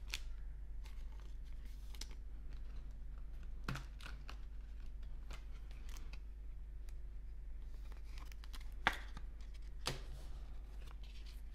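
Baseball trading cards being handled, with one card slid into a soft plastic penny sleeve: scattered light clicks and rustles of card stock and plastic over a steady low hum.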